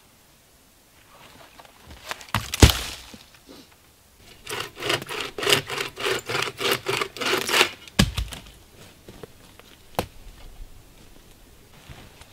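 Dry dead wood being broken up for firewood: a loud snap about two and a half seconds in, then about three seconds of quick, even scraping strokes, about four a second, and two more single sharp cracks later on.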